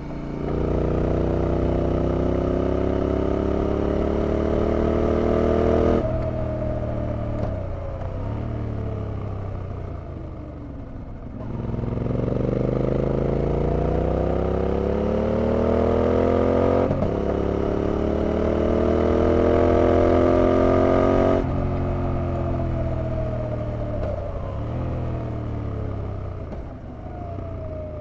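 Yamaha TDM 850 parallel-twin motorcycle engine under way: it pulls with rising pitch, the throttle shuts suddenly about six seconds in and the engine winds down. A second pull starts around twelve seconds, with a quick upshift partway through, before the throttle shuts again around twenty-one seconds and the revs fall away.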